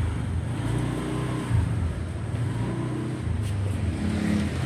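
Motor vehicle engine running steadily, with a low hum and road noise.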